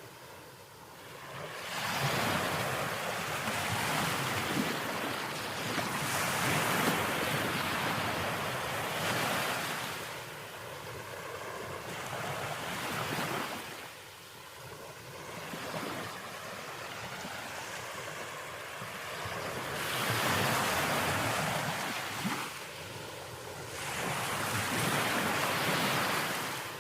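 Ocean waves breaking and washing ashore, the surf noise swelling and fading in slow surges every several seconds.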